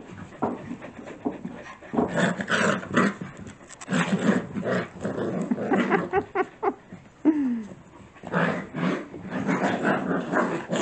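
Six-week-old puppies and their mother dog play-fighting face to face: short growls and whimpers coming in irregular bursts.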